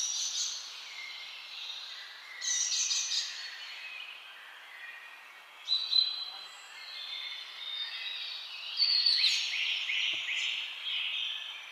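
Birds chirping and trilling in short bursts over a steady outdoor hiss, loudest a little after the middle and again near the end.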